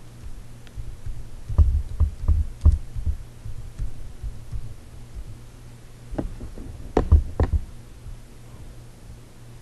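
Keystrokes on a computer keyboard, heard as irregular low thuds in two clusters, one about two seconds in and a louder one about seven seconds in, over a steady low hum.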